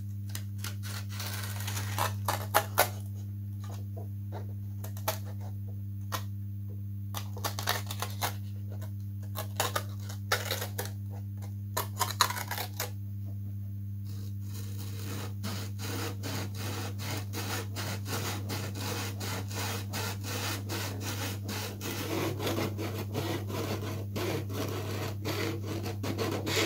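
Scattered light clicks and scrapes of a scalpel trimming covering tissue on a balsa model wing, then from about halfway in a small hand saw cutting through the balsa with rapid short strokes, over a steady low electrical hum.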